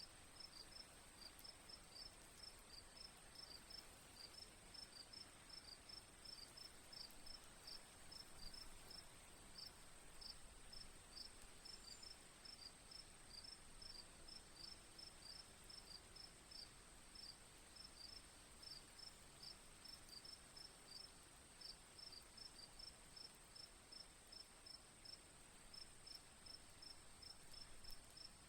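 Insects calling: a steady high-pitched trill with a quick, regular chirping over it, about three chirps a second, above a soft steady hiss.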